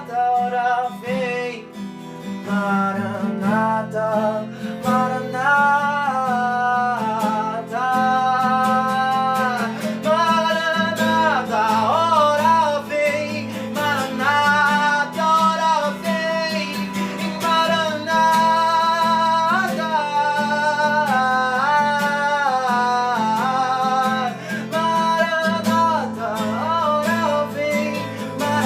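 Acoustic guitar strumming under a sung melody that glides between notes with vibrato.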